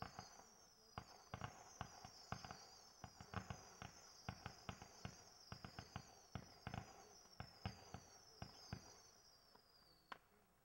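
Firework cake firing: a string of overlapping high whistles, each falling in pitch, about one every three quarters of a second, with sharp pops and cracks scattered among them. A last crack comes about ten seconds in, and then the sound dies away.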